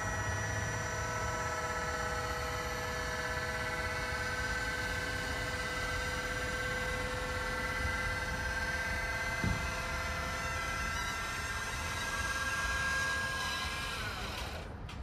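Electric hydraulic pump motor of a Haulotte electric boom lift whining steadily as it drives the boom, with one click about halfway through. The whine drops in pitch and stops near the end.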